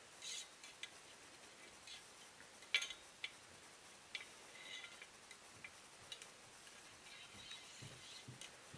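Faint handling sounds from a Remington Versamax shotgun barrel and gas assembly being turned over in the hands: scattered light metal clicks and clinks, the sharpest about three seconds in, with some faint scratching.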